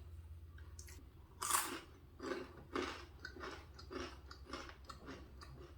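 Close-miked chewing of a mouthful of food, with one louder bite about a second and a half in, then steady chews about twice a second over a faint low hum.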